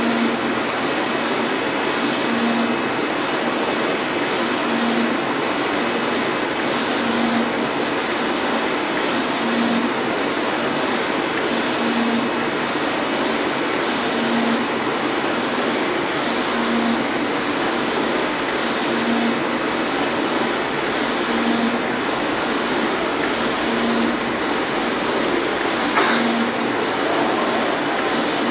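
UV flatbed printer running: its print-head carriage shuttles over the sheet with a steady whirring noise and a short low hum that repeats about every two and a half seconds. There is a single click near the end.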